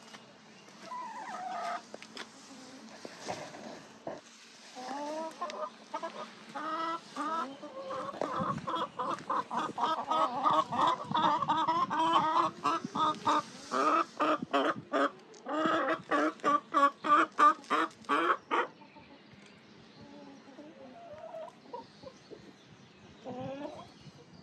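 Chickens clucking and cackling: a dense run of rapid, repeated calls that builds from a few seconds in and breaks off suddenly about three-quarters through, followed by a few scattered clucks near the end.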